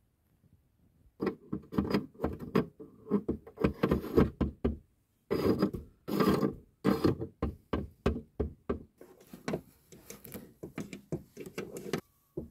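Hard plastic toy figure and dollhouse furniture being handled: quick knocks, taps and rubbing on the dollhouse floor as the figure is walked along, with a louder scraping stretch around the middle.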